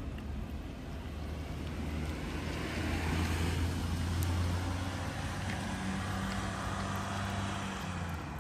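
A motor vehicle running close by: a steady low engine hum that swells to its loudest about halfway through and eases off toward the end.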